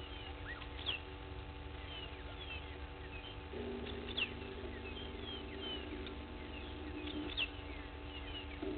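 Wild birds calling: many short, high, falling chirps throughout, with three louder sharp downward notes. A low drawn-out call joins in from about three and a half seconds in and fades a few seconds later.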